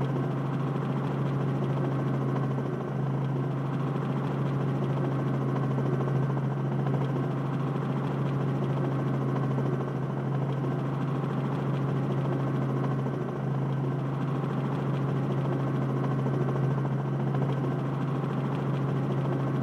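Multirotor drone's motors and propellers whirring with a steady hum during flight.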